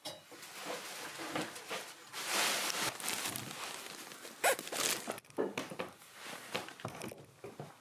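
Insulation slabs being handled and pushed up between wooden roof rafters: rustling and scraping, with a few sharp knocks about four and a half and five seconds in.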